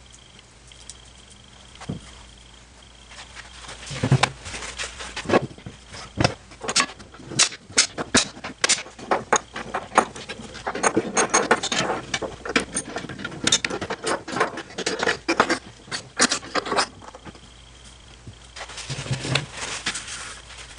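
Wood glue-up at the bench: black walnut boards and tools handled, a busy, irregular run of sharp clicks and knocks starting about four seconds in and tailing off near the end, over a faint steady high whine.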